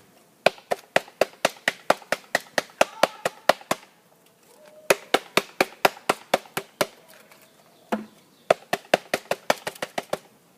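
Bee package box being knocked hard and fast against the hive to shake the bees out, about five sharp knocks a second in three runs with short pauses between.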